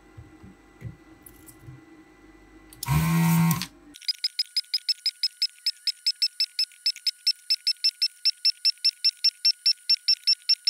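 A desoldering gun at work on a chip's pins: one loud burst of its vacuum pump about three seconds in. From about four seconds on comes a fast, even run of high-pitched blips, about five a second, as the pump fires pin after pin in sped-up footage.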